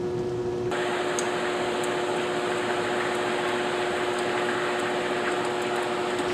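Steady hiss of storm wind and rain in the trees, growing louder and brighter about a second in, over a constant low hum.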